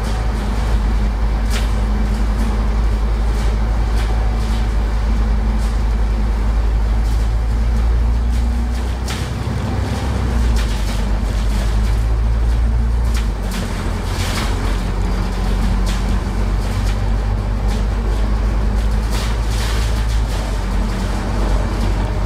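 Alexander Dennis Enviro500 MMC double-decker bus running under way, heard from on board: a steady low drone with a steady hum above it and a few brief clicks and rattles. About thirteen seconds in the drone eases off and the hum changes pitch.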